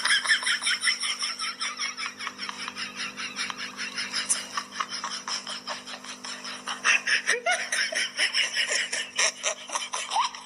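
Continuous high-pitched laughter, rapid and unbroken, over a faint steady hum.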